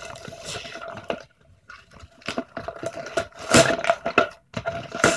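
Hands pulling and handling the box and punch-out pieces of a craft kit: irregular scraping and rustling with scattered small clicks. The loudest scrape comes about three and a half seconds in.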